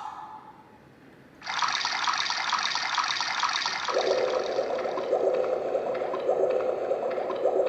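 Yamaha Remie mini keyboard playing a water sound effect, a trickling, pouring noise that starts about a second and a half in. About four seconds in a lower tone joins it, pulsing at a regular beat.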